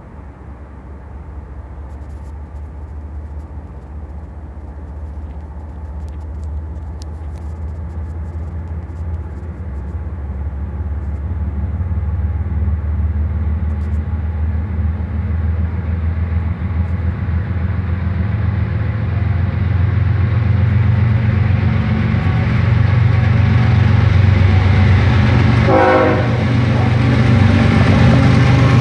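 Norfolk Southern diesel freight locomotive approaching, its engine drone growing steadily louder as it nears. There is a brief higher tone near the end.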